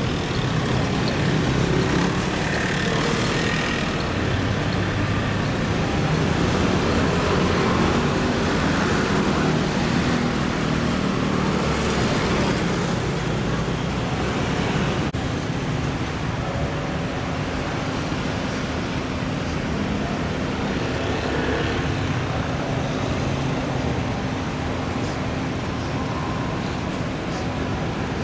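City street traffic: scooters and cars passing and idling at an intersection, a steady wash of engine and tyre noise. About halfway through, a steady low hum joins in.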